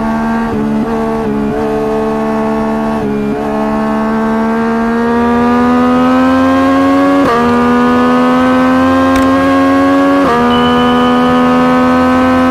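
Yamaha MT naked bike's engine and exhaust under acceleration, the note rising steadily through the gears and falling sharply at two upshifts, about seven and ten seconds in. A few brief dips in pitch come in the first three seconds, and it gets louder about five seconds in.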